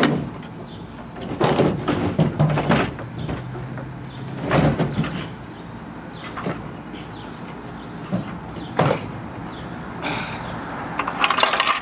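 Wooden sewing machine cabinet being dragged and lifted out of a pickup truck bed, with a series of knocks and scrapes of wood against the bed; the loudest bumps come about a second and a half, two and a half and four and a half seconds in.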